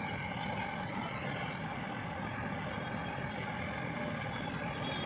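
Brazing torch flame running with a steady, even rushing hiss, held on the copper tube joints of an air-conditioner condenser coil while they are brazed.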